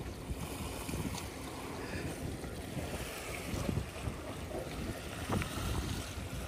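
Wind buffeting the microphone over small sea waves washing against rocks, with a few brief splashes.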